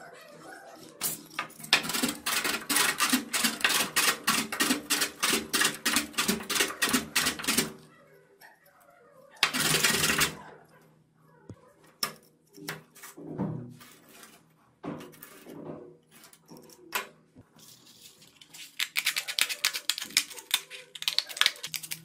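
Hand work on a small wooden disc and a sheet of sandpaper: a long run of quick, even scraping strokes, a short steady rub, and scattered light knocks and handling noises. Near the end, scissors cut through the sandpaper in quick snips.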